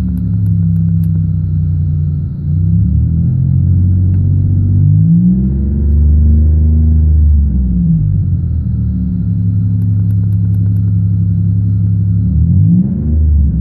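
1999 Pontiac Bonneville's 3800 V6 engine running, an engine that the owner says misfires. It holds a steady speed, is revved up and falls back once around six seconds in, and rises again near the end.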